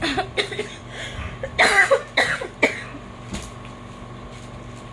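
A woman coughing a few times, the loudest about two seconds in, over a steady low background hum.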